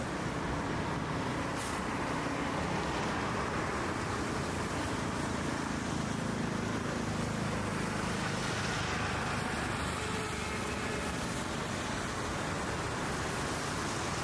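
Steady city road traffic: cars and other vehicles running past, a continuous wash of engine and tyre noise.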